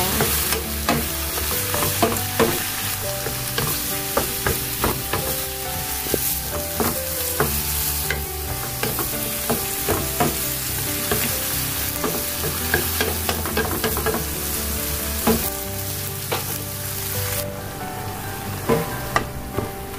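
Shrimp and garlic chive flower stalks stir-frying in hot oil in a nonstick wok: a steady sizzle with frequent knocks and scrapes of a wooden spatula against the pan.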